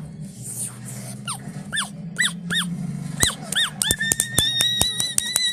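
A run of about six short, high squeaky chirps, each rising and falling, about two a second, then a steady high-pitched squeal starting about four seconds in, broken by sharp clicks, over a low hum.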